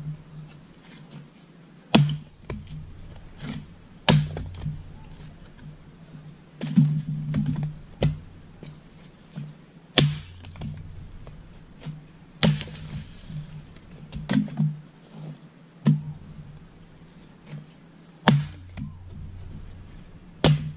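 Axe strikes splitting firewood: sharp chopping blows into wood, about one every two seconds, each with a dull thud.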